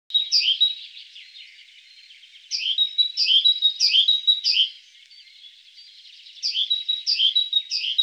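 Small songbird singing in three bursts of quick repeated chirps, about two or three a second, over a thin steady high note.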